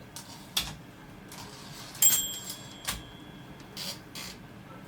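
Olympia Monica portable typewriter being worked: sharp mechanical clicks, and a single bright bell ding about two seconds in that rings on for about a second, the typewriter's carriage bell.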